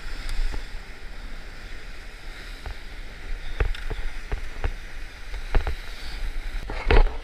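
Surf washing and surging over the rocks, with wind rumbling on the microphone and scattered light clicks and knocks. A short louder burst comes near the end.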